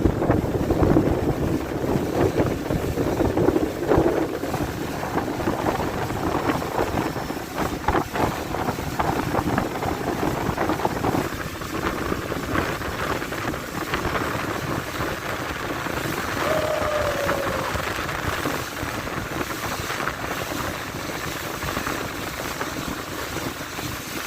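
Speedboat under way: a steady rush of engine and water, with wind buffeting the microphone. It is louder in the first few seconds, then settles.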